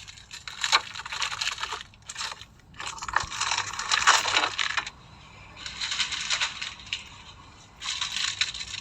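Crinkling and rustling of chocolate packaging being handled, in four bursts with short pauses between them.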